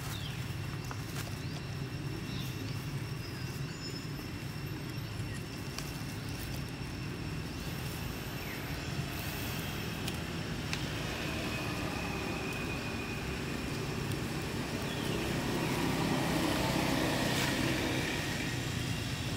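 Outdoor ambience dominated by a steady low rumble of distant road traffic. It swells for a few seconds near the end as a vehicle passes closer. A few faint bird chirps sound over it.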